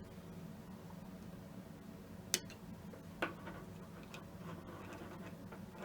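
Two sharp clicks about a second apart from hand tools working 3D-printed plastic parts, over a steady low hum.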